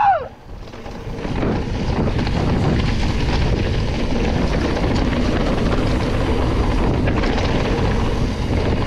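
Mountain bike descending a rough trail: steady tyre rumble and bike rattle mixed with wind buffeting the camera microphone, dipping briefly just after the start.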